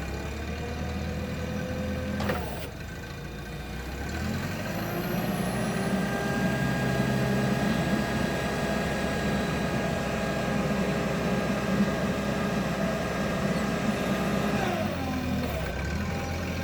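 Propane-fuelled engine of an EP CPQD25N-RW22-Y2 5,000 lb forklift idling, with a click about two seconds in. About four seconds in the engine speeds up, holds a higher steady speed for about ten seconds, then drops back to idle near the end.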